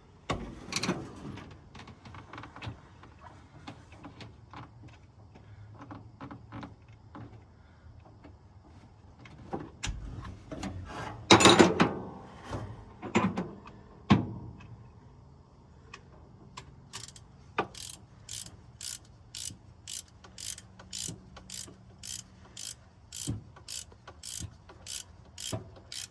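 Ratchet wrench clicking as a spark plug is worked in the cylinder head, with scattered metallic clinks and knocks and one louder clatter about eleven seconds in. Near the end the ratchet clicks settle into a steady rhythm of about two a second.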